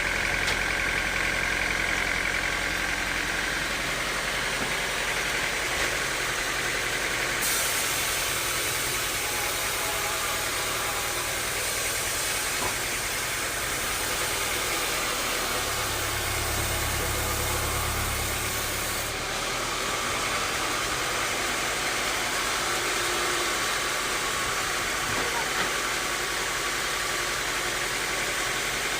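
Sawmill machinery running steadily, engine-driven, its hiss growing sharper for a stretch in the middle.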